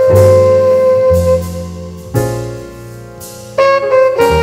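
Jazz background music: held chords over a walking bass, softening about halfway through and swelling back in loudly near the end.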